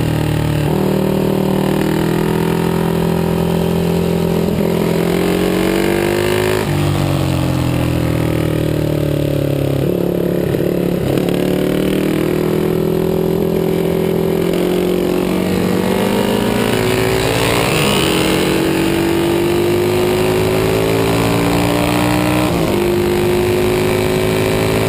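Aermacchi Ala d'Oro 350's single-cylinder four-stroke racing engine at speed, heard from onboard the bike. Its pitch climbs as it revs out and drops back at each gear change, several times over, with wind rush over the microphone throughout.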